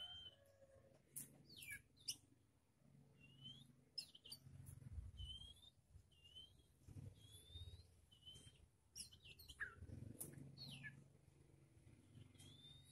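Caged songbirds giving faint short chirps, roughly one a second, mixed with a few quick calls that sweep steeply downward in pitch.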